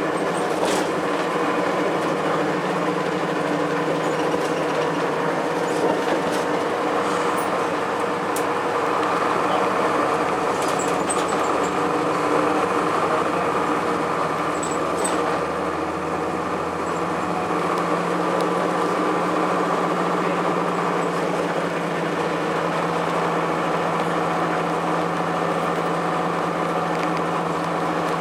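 Cummins ISC straight-six diesel engine of a 2002 Blue Bird CS school bus running steadily, with scattered clicks and rattles.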